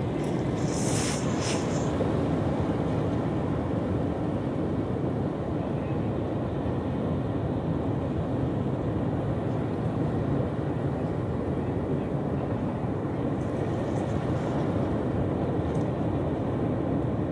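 Steady low roar of beach ambience, surf and wind, with no rhythm or change in level. A brief high hiss sounds about a second in.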